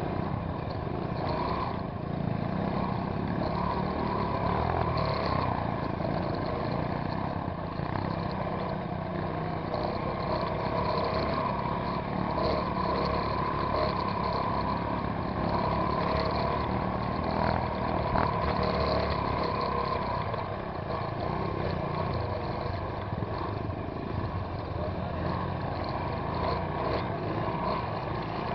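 Trail motorcycle engine running steadily while riding over a rough, rocky dirt trail.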